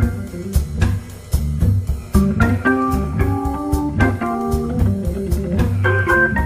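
Hammond organ playing a blues, with a melodic line over a moving bass line and drums keeping time.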